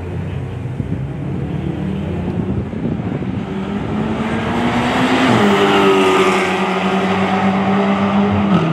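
Two high-powered cars racing side by side at full throttle in a roll race, engines running hard. The sound grows louder over the first half, and the engine pitch drops suddenly about five seconds in and again near the end.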